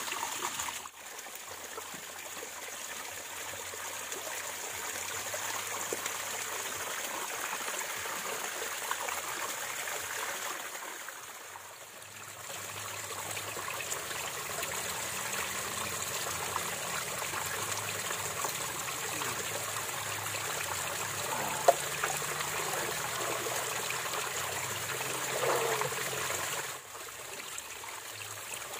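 A stream flowing and trickling steadily, with one sharp click about three quarters of the way through.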